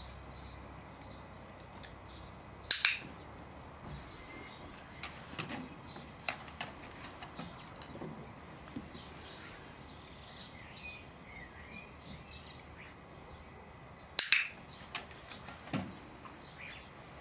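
Two sharp, loud double clicks about eleven seconds apart, each a pair of snaps in quick succession, with small taps and knocks between them over faint birdsong.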